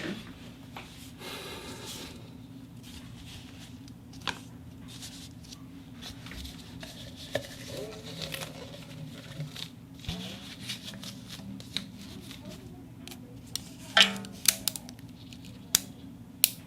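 Rubber parts of a follow focus and a loudspeaker being worked by hand: short squeaks and rubbing with scattered clicks, and a louder rasping squeak with a few sharp clicks near the end, over a steady low hum.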